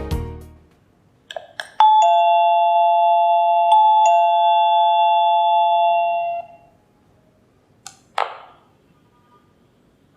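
Two-note doorbell chime: a higher note and then a lower one a moment later, ringing on together for about four and a half seconds. A few clicks come just before it, and a single sharp knock about eight seconds in.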